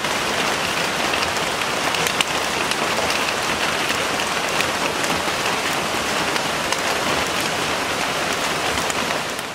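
Steady rain falling, an even hiss sprinkled with the ticks of individual drops, some striking a metal pan lid. It fades down sharply at the very end.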